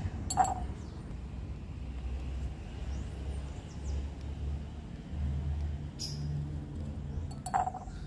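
Metal tweezers clinking against the rim of a small glass jar as extracted larvae are dropped in: two short ringing clinks, one just after the start and one near the end, over a low steady hum.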